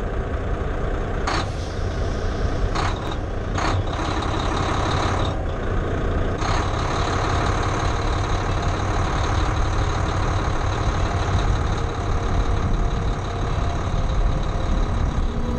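Semi truck's diesel engine running, a steady low rumble, with a few brief sharp noises in the first few seconds and a longer one of about a second near six seconds.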